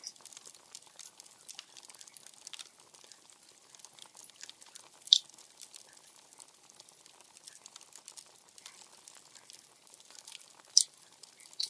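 Wood fire crackling: a steady run of small ticks, with loud, sharp pops about five seconds in and near the end.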